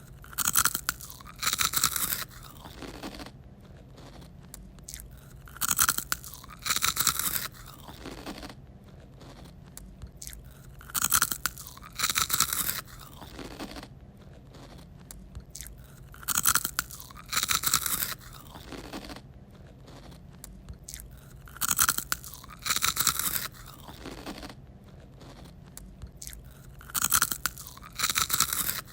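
Loud crunchy chewing: pairs of crunches about a second apart, the pattern repeating about every five seconds.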